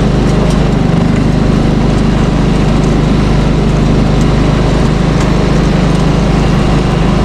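Engine of a snow-plowing vehicle running steadily at an even pitch, with faint light ticks over it.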